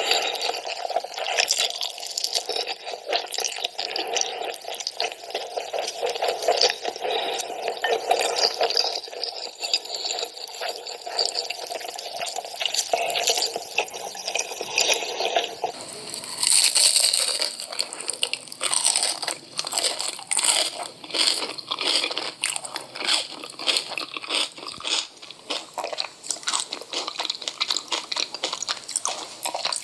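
Close-up crunching and chewing of crisp food, a dense run of irregular crunches. About halfway through, the crunches turn sharper and brighter.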